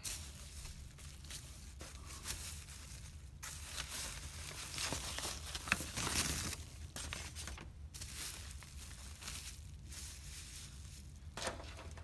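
Close rustling and crinkling with scattered crackles, coming and going in stretches, as some material is handled near the microphone.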